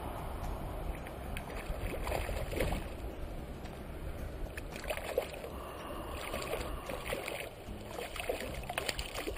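Hooked sea-run cutthroat trout splashing at the water's surface as it is played in on a fly line, several separate splashes over a steady low rumble.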